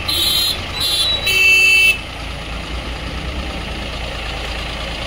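A horn blares in three short blasts over the first two seconds. Then a tractor engine runs with a steady low throb as the tractor pulls a loaded trolley away.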